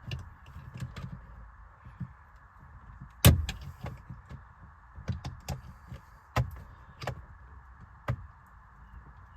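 Scattered sharp clicks and knocks, about half a dozen, the loudest about three seconds in, as a pick tool works the last retaining clip of a steering-wheel airbag module and the module is rocked back and forth.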